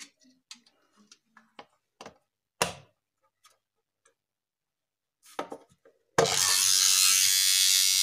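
Clicks and a sharp knock from a tin pencil box being handled and shut. About six seconds in, the box's home-made alarm goes off as the lid is opened: a loud, steady electric buzzing that holds for about two seconds and then cuts off.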